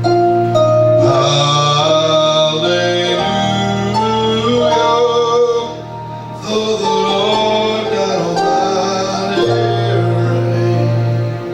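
Recorded worship music playing from a CD: held sung notes over a sustained bass, with a brief drop in loudness about six seconds in.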